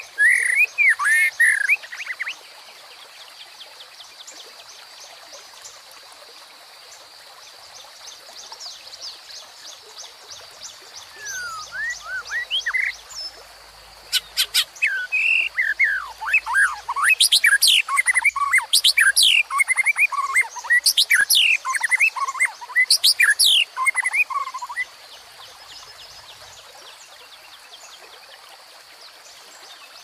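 White-rumped shama (murai batu) singing loud, varied whistled phrases with quick rising and falling glides: a short burst at the start, a few notes about eleven seconds in, then a long run of song until about twenty-five seconds in. Under it the steady rush of a small stream.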